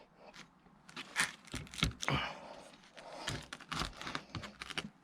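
Irregular scrapes, clicks and knocks of metal on metal as a 330 kg neodymium clamp magnet is worked and pried off a steel railway spike it is clamped to.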